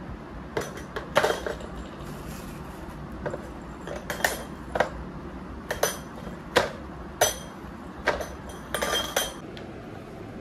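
White plastic trays of a metal-poled storage rack clattering as they are handled: about a dozen sharp, irregular clacks and knocks, with a quick flurry near the end.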